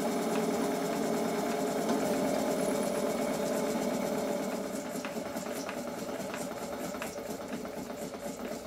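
Stuart model steam engines on a model steam plant running on live steam, a steady mechanical clatter. The sound eases off somewhat from about halfway, with separate clicks standing out.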